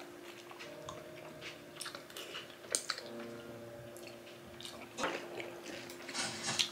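A person chewing a mouthful of food, soft mouth sounds with a few faint clicks, over a faint steady hum.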